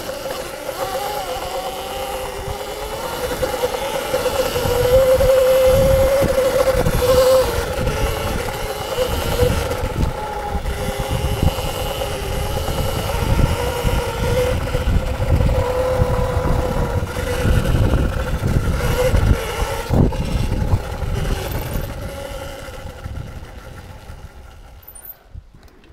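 Electric dirt bike riding, its motor whine wavering up and down in pitch with the throttle, over low rumble and knocks from the ride. The sound fades away over the last few seconds.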